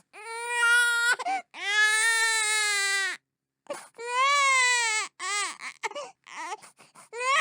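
Baby crying: a string of long wailing cries, each one to two seconds, rising then falling in pitch, with short catching sobs and brief silences between them.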